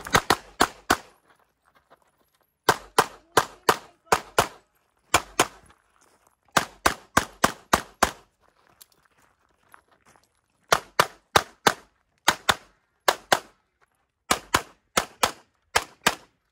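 Rapid pistol fire from a CZ Shadow 2, sharp shots in fast runs of two to eight, with pauses of one to two seconds between runs.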